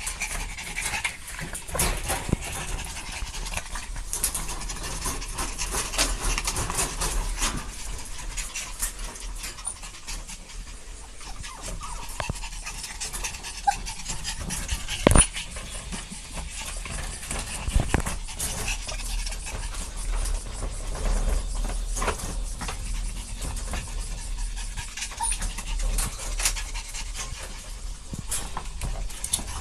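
Dog panting steadily, with scattered light clicks and taps. Two sharper knocks stand out, about halfway through and a few seconds later.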